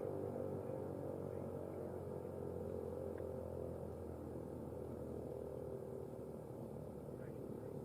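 ASC T-128 outdoor warning siren sounding a steady tone that slowly grows quieter.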